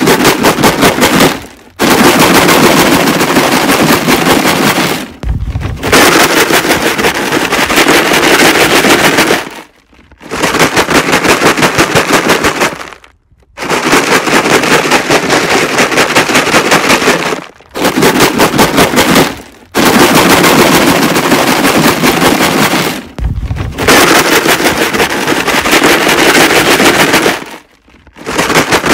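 Rocks rattling in a plastic laundry-detergent jug, shaken hard in rapid back-and-forth strokes. It comes in loud bursts of two to four seconds, about eight of them, with short pauses between. A dull thud comes twice, at two of the pauses.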